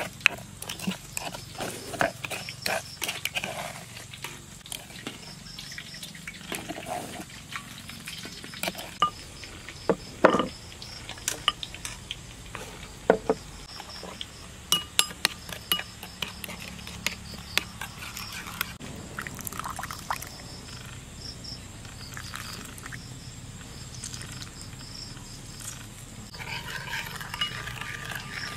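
Metal spoon stirring and scraping a chili sauce in a mortar and then a ceramic bowl, with irregular clinks and knocks against the sides. Crickets chirp faintly in the background.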